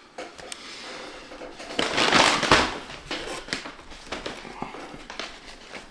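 Rustling and handling noise with scattered clicks, loudest about two seconds in.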